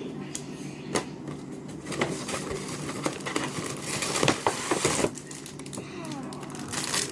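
Handling noise from unpacking squishy toys: scattered light clicks, taps and crinkles of plastic packaging, with patches of rustling a few seconds in.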